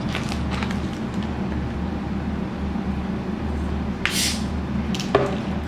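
A plastic bottle of carbonated peach drink is twisted open about four seconds in, giving a short hiss of escaping gas, followed by a couple of light clicks from the cap. A steady low hum runs underneath.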